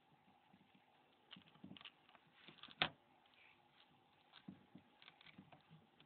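Faint small clicks and scrapes of tweezers working loose the glued-in flip circuit-board module of a Nokia N93 phone. One sharper click comes a little under three seconds in.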